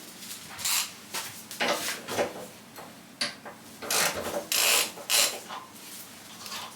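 Hand tools working on the scooter's handlebar fittings: an irregular run of metal clicks and short rattles, busiest about four to five seconds in.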